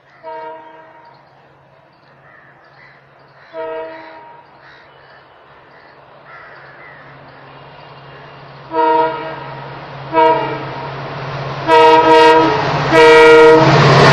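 EMD diesel locomotive approaching at speed, sounding its multi-tone air horn in six short blasts that grow louder, over a steady engine drone that also builds. Near the end it reaches the microphone, and the engine and wheel noise swell into a loud rush as it passes.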